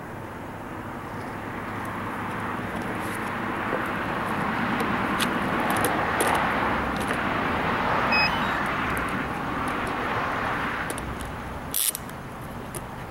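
A road vehicle passing close by: a rushing noise that swells over several seconds and then fades. A sharp click comes near the end.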